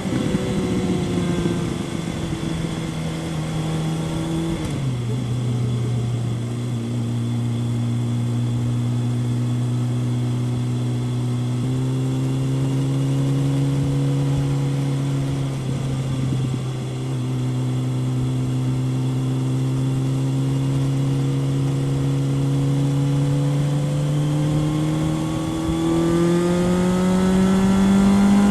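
Kawasaki ZRX 1100's inline-four engine through a Yoshimura exhaust, under way on the road. The engine note drops sharply twice, about five seconds in and again about sixteen seconds in, holds steady while cruising, then rises steadily as the bike accelerates near the end.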